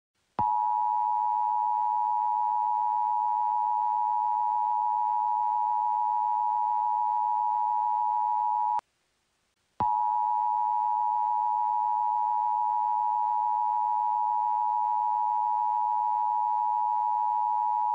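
Emergency Alert System two-tone attention signal, a steady electronic dual tone of 853 and 960 Hz. It sounds twice for about eight seconds each, with a break of about a second in the middle.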